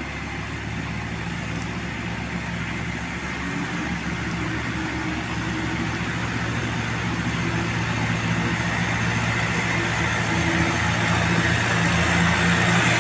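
Large farm tractor's diesel engine running steadily under load, with a loaded truck's engine behind it, growing steadily louder as the tractor approaches.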